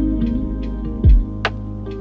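Lo-fi hip hop music: mellow sustained chords over a bass line, with light percussion ticks and a deep thump a little past halfway through.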